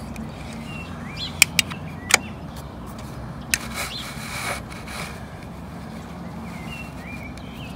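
Lever of a halyard clutch on a sailboat mast being worked: several sharp clicks about a second and a half to two seconds in, another near the middle, and a short rubbing rush just after. A steady low hum runs underneath, with a few faint chirps.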